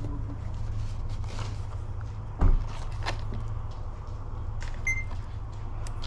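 A single short beep about five seconds in, a smartphone barcode scanner reading a product barcode. Before it, about halfway through, a dull thump is the loudest sound, over a steady low rumble.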